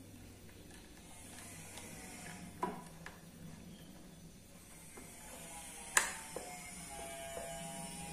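Screwdriver turning a bolt on a motorcycle battery terminal: a few scattered small metal clicks and taps, the loudest a sharp click about six seconds in.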